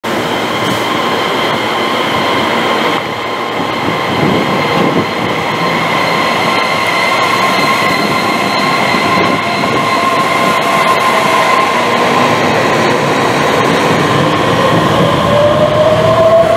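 Taiwan Railways EMU3000 electric multiple unit pulling away from a station, its Hitachi SiC-VVVF traction inverter giving a set of steady high-pitched whines over the rolling noise of the train. Near the end a lower whine starts and climbs in pitch as the train gathers speed.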